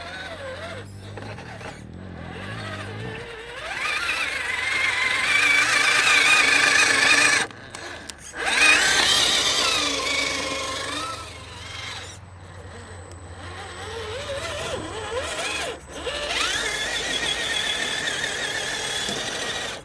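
Electric motor and gear drive of a Huangbo Bronco RC crawler whining, the pitch rising and falling with the throttle, with two brief pauses.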